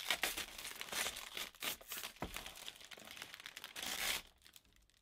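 Protective plastic film being peeled off perspex (acrylic) parts and crumpled in the hands: a dense run of small crackles that stops about four seconds in.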